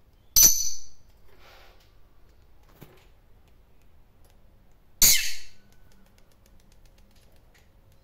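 Peach-faced lovebird giving two loud, shrill chirps about five seconds apart, each brief and sharp-edged.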